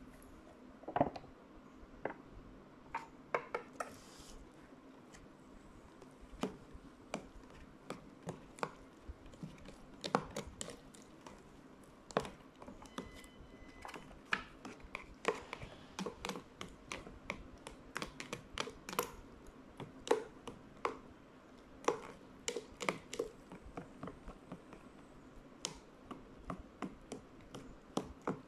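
Metal chopsticks clicking and scraping against the inside of an instant-noodle cup as the noodles are stirred: quick, irregular light taps.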